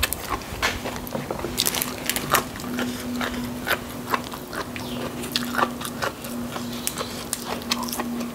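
Crisp clicks and crackles of a fresh green bean pod being split and peeled apart by hand, close to the microphone, mixed with chewing sounds, over a steady low hum.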